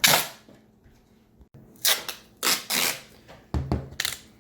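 Duct tape being pulled off the roll and stretched over the seam between a box fan and its air filter, a series of short, sharp rips: one at the start and several more in the second half.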